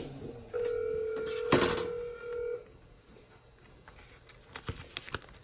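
A steady electronic tone lasting about two seconds, with a sharp click partway through, then a quieter stretch of faint small clicks as the keyboard's ribbon cable is handled.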